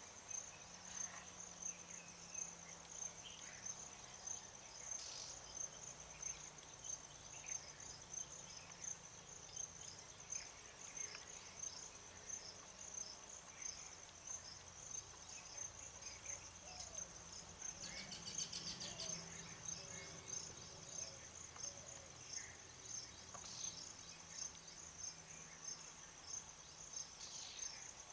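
Insect chirping in a steady, high-pitched pulsing rhythm, with a few faint short calls scattered through it.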